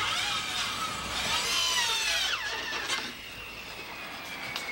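Handheld electric power tool working plywood: its motor whines up to speed, runs, and winds down about two and a half seconds in, then a fainter whine lingers.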